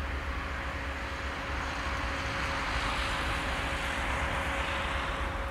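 Diesel-electric locomotive approaching with its engine running: a steady hum over a low rumble, with the noise swelling for a couple of seconds mid-way as it draws nearer.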